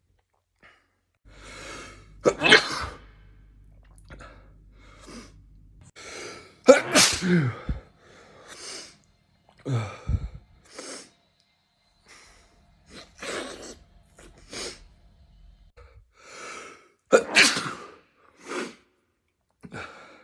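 A person sneezing over and over: three loud sneezes about two and a half, seven and seventeen seconds in, with many shorter, quieter bursts between them.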